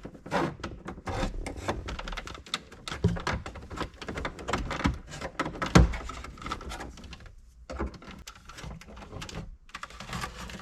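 Plastic dashboard trim panel being worked loose by hand: a quick run of small plastic clicks, creaks and knocks as its retaining clips give, with a sharper knock about six seconds in.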